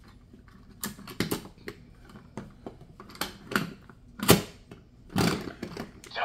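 Plastic parts of a VTech Switch and Go gorilla toy clicking and knocking as it is folded from gorilla into car form. The clicks come irregularly, with the loudest knock about four seconds in.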